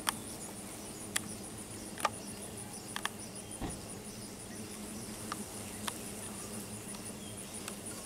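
Low buzzing of cicada killer wasps flying close around, under a steady high pulsing insect call. Several short, sharp clicks of footsteps on the gravelly asphalt path.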